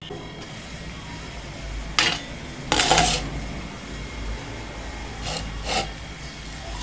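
A glass pan lid being lifted off a kadai with a sharp clink and set down with a scraping rub, then two short scrapes of a spatula in the pan near the end.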